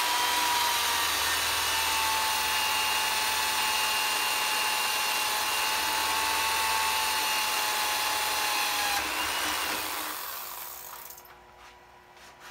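Handheld electric drill with a 3/8-inch bit running steadily as it bores the entrance hole in a small turned wooden birdhouse ornament. The steady motor whine winds down about nine seconds in, followed by a few faint clicks.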